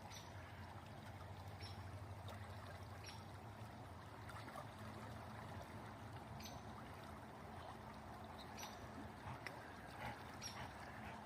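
A stream running steadily over its bed, with a few faint short splashes scattered through.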